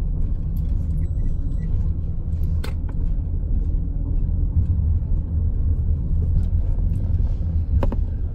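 Car driving slowly, heard from inside the cabin: a steady low rumble of engine and tyres, with a few light clicks.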